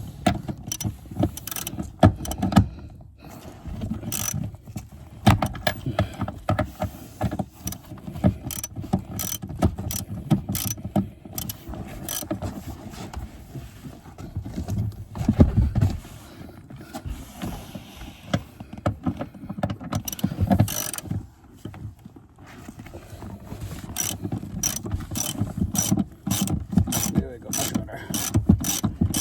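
Socket ratchet on an extension clicking in quick runs with short pauses as it turns out a seat-mounting bolt, with a few heavier knocks in between.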